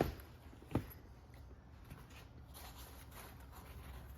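Two short knocks about three quarters of a second apart, then faint rustling: hands handling the drill kit's bag and its contents while unpacking.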